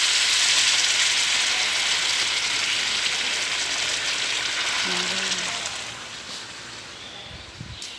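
A splash of water sizzling in a hot pot of fried fish and fried potatoes, added so the food doesn't burn on the bottom. The steady sizzle dies down about six seconds in.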